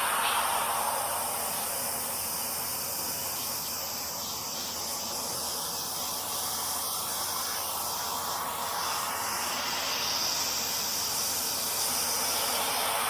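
Fiber laser cutting machine running a cut: a steady hiss from the assist-gas jet at the cutting head, changing in tone a couple of times as it works.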